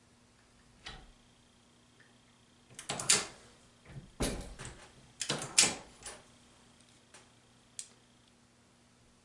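Metallic clicks and short clattering handling noises from the reloading press and cartridge between bullet-seating adjustments: one click about a second in, then three clusters of clacks between three and six seconds in, and a last click near the end.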